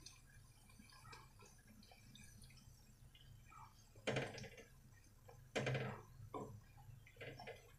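Luchi deep-frying in hot oil, the oil sizzling and crackling faintly, with two louder bursts of sizzle about four seconds in and again a second and a half later.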